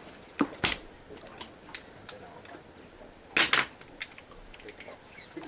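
A handful of sharp clicks and knocks over a low background hiss, with a louder cluster of them about three and a half seconds in.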